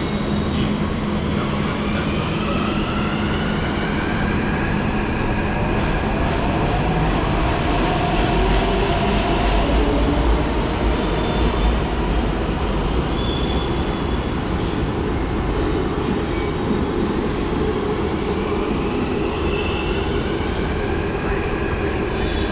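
Hyderabad Metro train running through the station: steady running and rail noise, with electric whines that glide up and down in pitch.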